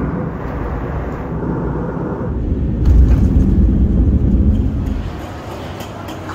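Jet airliner engine noise: a steady low rumble that grows much louder about three seconds in and eases off again near the end.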